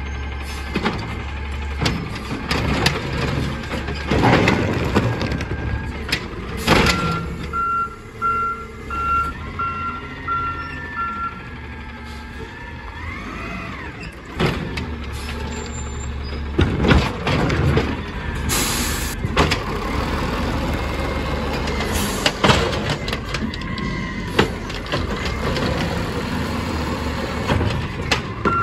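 Natural-gas Peterbilt 320 garbage truck idling while its Amrep automated side-loader arm works a recycling cart, with hydraulic whines and repeated clanks and bangs as the cart is gripped, dumped and set down. A beeping warning alarm sounds for a few seconds about a quarter of the way in.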